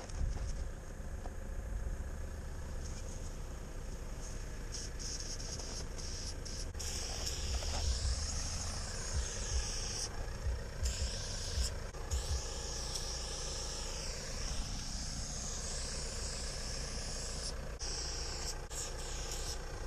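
Aerosol spray paint can hissing in long bursts as a graffiti outline is sprayed, starting strongly about a third of the way in and stopping briefly a few times, over a low rumble.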